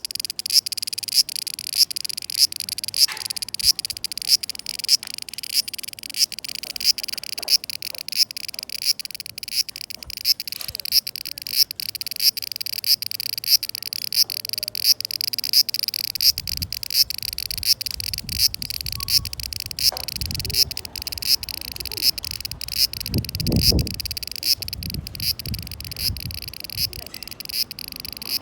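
Cicadas singing: a steady high buzz that swells and fades in a regular pulse about one and a half times a second. A low rumble joins in during the second half.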